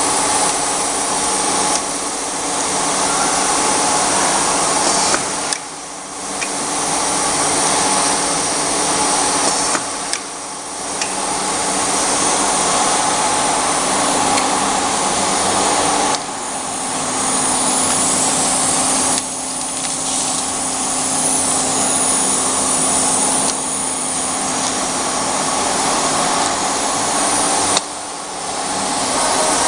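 Loud, steady machinery noise: a constant hum under a whirring hiss. It dips briefly every few seconds.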